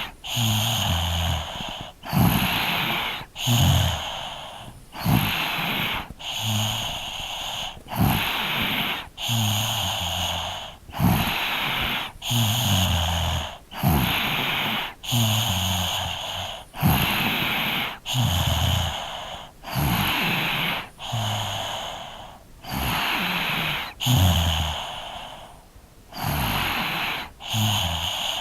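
Three-year-old child snoring in sleep: a steady, even rhythm of noisy breaths in and out, about one breath sound a second. Many of them carry a low rattling snore.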